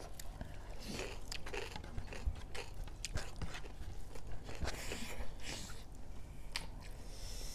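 Close-up chewing and biting of pork curry with rice: irregular wet mouth clicks and crunches.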